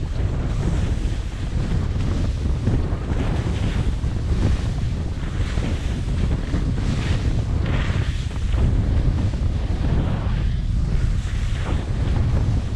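Heavy wind buffeting a GoPro Hero 7 Black's microphone at skiing speed. Under it, skis hiss and scrape on steep snow, swelling and fading with each turn.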